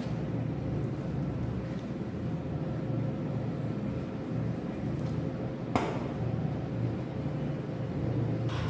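Steady low machine hum of an operating theatre, with a faint steady tone above it. A single sharp click of a metal surgical instrument about six seconds in.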